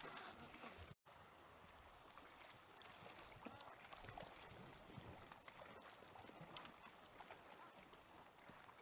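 Near silence: faint ambience of lapping sea water with faint, distant penguin calls. The sound drops out completely for an instant about a second in.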